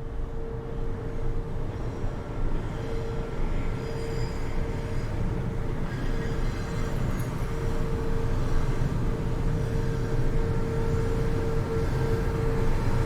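City train running on the line below, heard from a high floor: a low rumble that slowly grows louder, with a steady whine.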